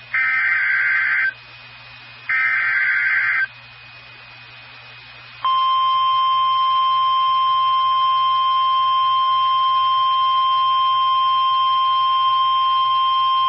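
NOAA Weather Radio Emergency Alert System activation. Two raspy SAME digital header bursts of about a second each come first. After a short gap, the steady 1050 Hz warning alarm tone starts about five seconds in and holds, signalling that a warning message follows.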